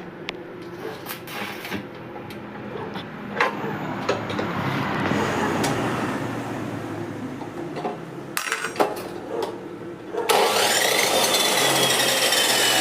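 Clicks and knocks of the chop saw's fittings being handled, then about ten seconds in the chop saw's motor is switched on and runs loud and steady, its whine rising as it spins up and then slowly sinking, the freshly fitted cutting wheel turning.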